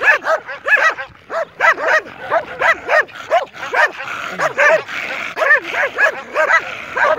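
A pack of stray dogs barking hard, a rapid, overlapping run of sharp barks, about two or three a second, from several dogs at once. The barking is the dogs guarding a flock of sheep and trying to drive an intruder away.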